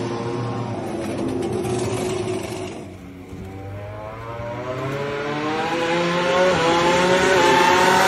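Suzuki GSX-RR MotoGP bike's inline-four engine running at a steady speed, then, after a break about three seconds in, a racing engine climbing in pitch as it accelerates, with two brief dips at upshifts near the end.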